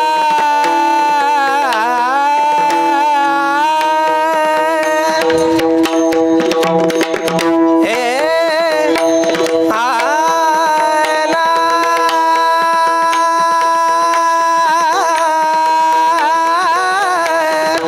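Marathi devotional abhang singing: a high, held vocal line with ornamented turns over a steady drone, accompanied by pakhawaj drum strokes that grow dense from about five seconds in.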